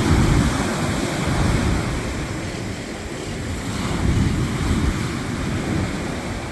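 Waves of a rough Mediterranean Sea breaking and washing on the shore, a steady surf hiss, with wind gusting and buffeting the microphone in a low rumble that swells twice.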